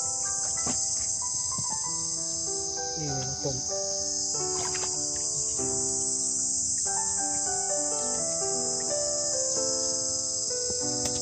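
Steady, high-pitched chorus of insects shrilling without a break, over background music made of held notes.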